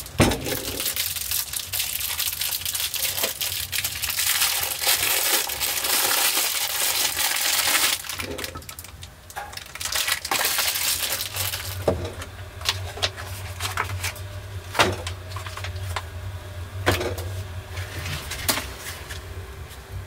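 A metal candlestick is set down on a wooden table with a single knock, then plastic packaging crinkles and rustles for several seconds as a candle is unwrapped. Scattered sharp crinkles follow in the second half.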